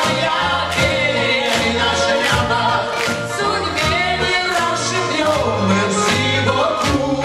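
A man and a woman singing a cheerful pop duet into microphones over a backing track with a steady beat and bass line.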